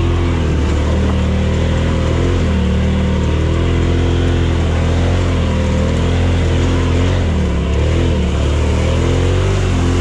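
Off-road buggy engine running under load while driving, its revs rising and falling.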